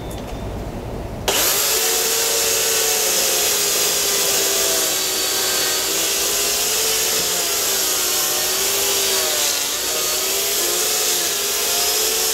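Makita UC3541A 1800 W corded electric chainsaw starts abruptly about a second in and cuts into a dead branch. The motor runs as a steady whine that wavers slightly in pitch as the chain bites through the wood.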